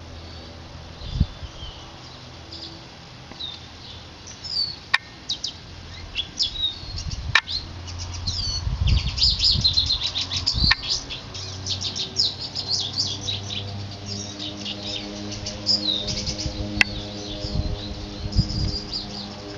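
Small birds chirping in quick runs of high notes, busiest in the middle, over a steady low hum. A few sharp clicks from the camcorder, which the uploader could not get rid of, and some low handling thumps break in.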